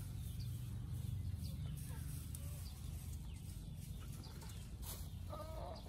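Chickens clucking and small birds chirping in the background over a steady low rumble, with a louder clucking call near the end.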